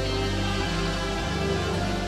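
Instrumental worship music: held chords over a steady bass, the chord shifting about every second, with no voice.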